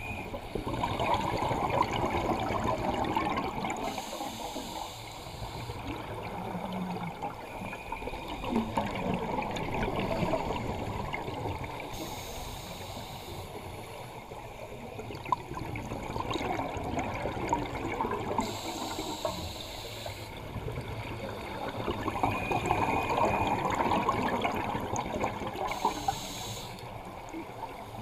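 Scuba diver breathing through a regulator underwater: a short hiss on each inhale, then a rush of gurgling exhaust bubbles on each exhale, slow and regular with a breath every six or seven seconds.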